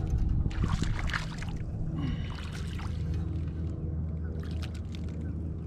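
Water splashing and trickling as a small bass is reeled in to the side of a kayak, strongest about a second in, with a steady low rumble underneath.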